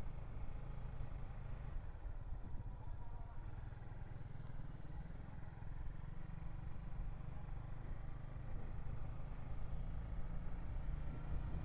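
Sport motorcycle running at low speed along a lane, with a steady low rumble from wind on the microphone.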